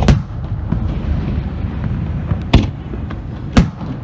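Aerial fireworks shells bursting: three sharp bangs, one right at the start, one about two and a half seconds in and one about three and a half seconds in, over a steady low rumble.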